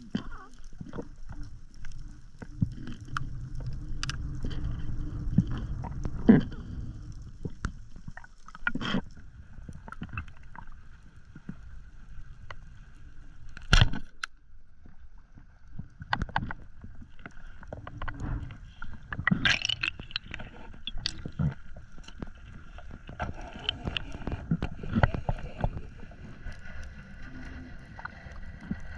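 Underwater ambience through an action camera's waterproof housing: a low rumble with scattered sharp clicks and knocks, the loudest about six and fourteen seconds in, over a faint steady whine.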